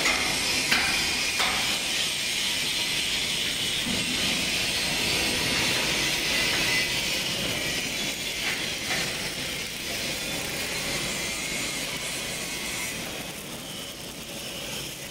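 Angle grinder grinding steel, a steady high-pitched grinding noise that grows fainter near the end.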